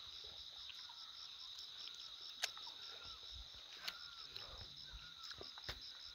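Insect chorus: a steady high buzz with a pulsing trill above it, about four pulses a second. A few sharp clicks or snaps stand out over it, the loudest about two and a half seconds in.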